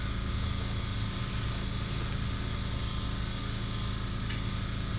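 Steady low machine hum with no rise or fall, and a faint click about four seconds in.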